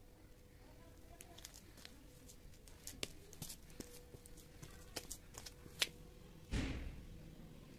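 Scattered light clicks and scuffs of footsteps on gritty concrete, with one short, louder low thump about six and a half seconds in. A faint steady hum runs underneath.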